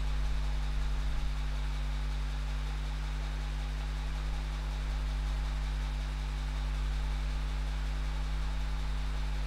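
A steady low hum under an even hiss, unchanging throughout, with no other sounds.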